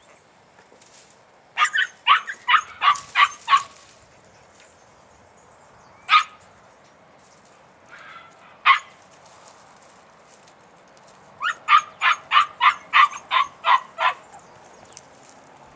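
A podenco puppy barking at quarry in a brush pile, in short high yaps. First comes a run of about six quick barks, then two single barks, then a faster run of about nine barks near the end.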